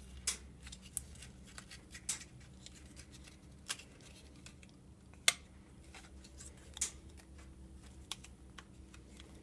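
Scattered sharp clicks and light crinkling from a laptop hard drive's thin metal cage and foil tape being handled and pried by hand, the loudest click a little past halfway.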